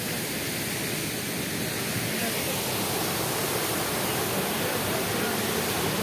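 Steady rush of falling water from the Arvalem waterfall, getting slightly louder toward the end.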